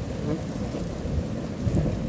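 Wind rumbling on the microphone, with a few faint crackles from the firewood fire burning under an iron kadai.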